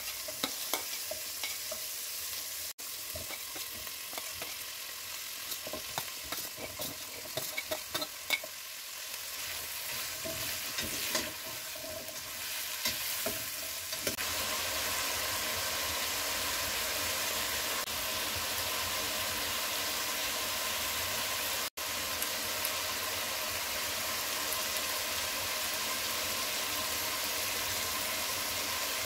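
Mixed vegetables sizzling as they fry in oil in a stainless steel pot, with a utensil clicking and scraping against the pot as they are stirred. About halfway the clicks die away and a steady sizzle remains.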